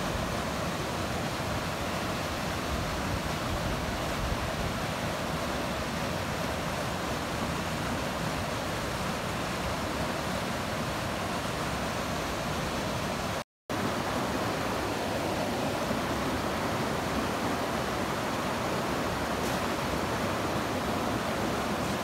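Mountain stream water running, a steady, even wash of noise. It cuts out completely for a split second a little past halfway.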